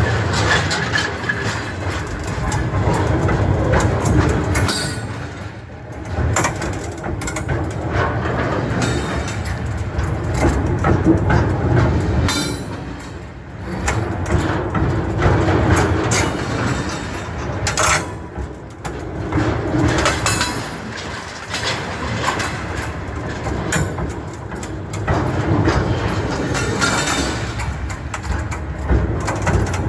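Railway cars rolling directly over the track from between the rails: a steady rumble with the clattering knock of wheels on the rails, loudness swelling and dipping a few times as the cars and their wheel sets pass.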